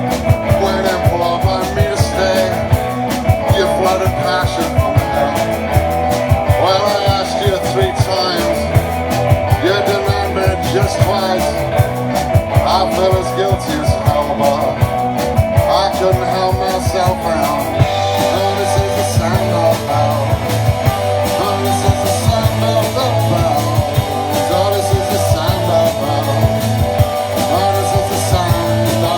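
Live rock band playing a song, loud and dense; the bass end grows heavier about eighteen seconds in.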